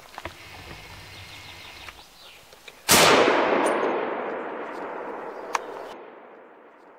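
A single hunting rifle shot about three seconds in, its report echoing and slowly dying away over the next few seconds: the shot that drops a roe buck. A short sharp click follows a couple of seconds after the shot.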